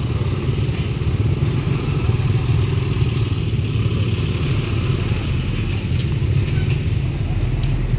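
Small motorbike engines running steadily close by as loaded motorbikes ride slowly past.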